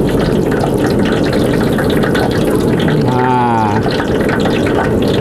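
Gas stove burner running on high, a steady low rushing noise of the flame as the frying oil is brought up to heat.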